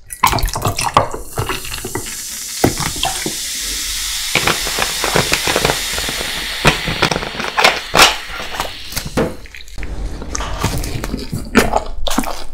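Clear carbonated soda poured from a plastic bottle into a glass over a large ice ball, splashing, then fizzing in the glass with a steady high hiss and crackle. A few sharp clicks stand out about seven to eight seconds in.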